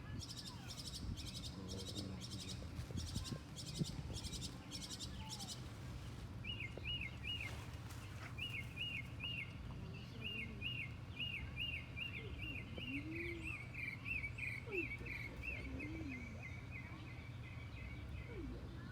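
Wild birds calling: a high, rhythmic pulsed buzz for the first five seconds, then a long series of short repeated chirps that come faster and run into a trill near the end, over a steady low background hum.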